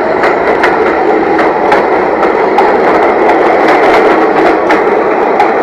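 New York City subway Q train pulling out of the station and passing close by: a loud, steady rolling rail noise with regular wheel clicks about three a second.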